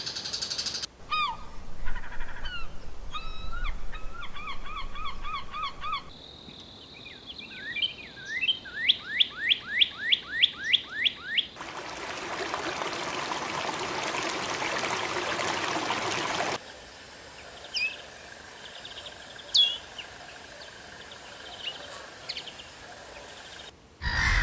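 A string of short bird recordings from different species, one after another with abrupt cuts. It opens with whistled chirps and trills. Next comes a run of about ten sharp, downward-sweeping notes at roughly three a second, then several seconds of steady hissing, and near the end a few scattered single chirps.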